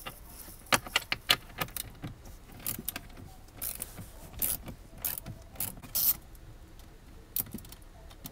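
Socket ratchet wrench with a 10 mm socket undoing a 10 mm bolt: sharp ratchet clicks and metal taps in uneven short runs.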